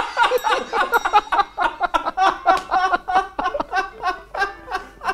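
Men laughing hard together: a long run of rhythmic 'ha-ha-ha' bursts, about four or five a second.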